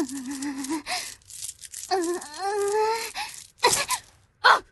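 A voice actress groaning and moaning as a girl being taken over by a summoned spirit: a wavering groan, breathy hissing noises, then a long moan that rises and falls, and a short strained grunt near the end.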